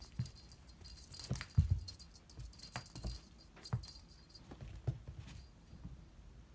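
A cat's paws thumping on the floor as it runs and lands, with light metallic jingling through the first four seconds or so.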